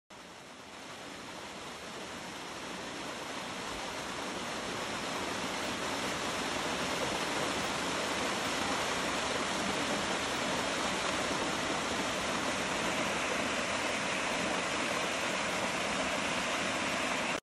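Small waterfall pouring over rocks into a pool: a steady rush of falling, splashing water that grows louder over the first several seconds and then holds.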